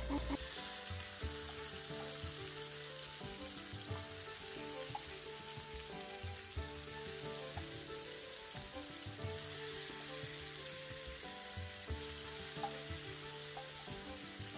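Marinated chicken pieces sizzling steadily in hot oil in a frying pan as they are laid in, with a few soft knocks.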